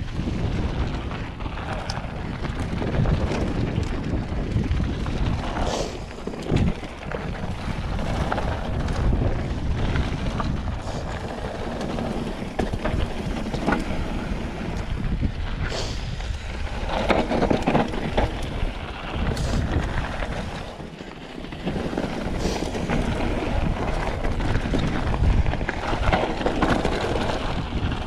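Wind rushing over the microphone of a camera on a mountain bike descending a dirt trail, mixed with tyre rumble on dirt and gravel and scattered knocks and rattles from the bike over bumps. The noise briefly eases about two-thirds of the way through.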